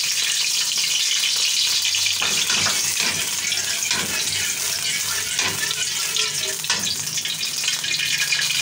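Hot ghee sizzling steadily in a metal pot, with a few scrapes and knocks of a metal slotted spoon against the pot as it is stirred.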